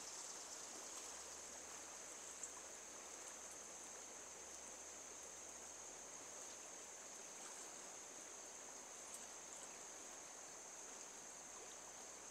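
Faint, steady rush of a stream's running water with a continuous high-pitched insect drone above it.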